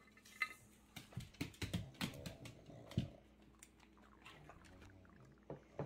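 A quick run of light clicks and crinkles from a plastic packet of dog treats being handled, dying down after about three seconds.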